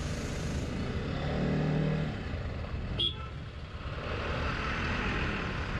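Traffic noise heard from a TVS Apache RR310 motorcycle riding slowly between heavy trucks: steady engine and road rumble, with a held engine drone about a second in and a single sharp click about three seconds in.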